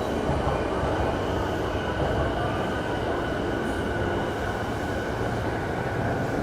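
Keihin-Tohoku Line E233-series electric commuter train pulling out of the platform: a steady running rumble with a faint whine from its motors. Wind buffets the microphone underneath.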